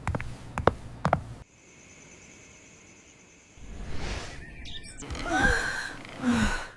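A few light taps, then a quiet stretch with a faint steady high tone, then chirping and a sighing voice with gliding pitch.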